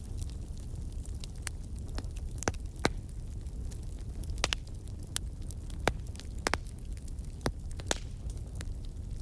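Wood fire burning in a fireplace: a steady low rumble of the flames with irregular sharp crackles and pops, about a dozen, a few of them louder.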